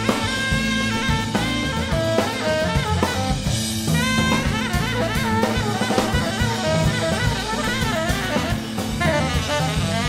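Background jazz music: a drum kit keeping a steady beat under a saxophone melody.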